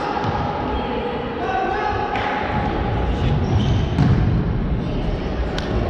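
Futsal ball kicked and thudding on a wooden sports-hall floor during play, with sharp knocks about four and five and a half seconds in, over players' and spectators' voices calling out in the hall.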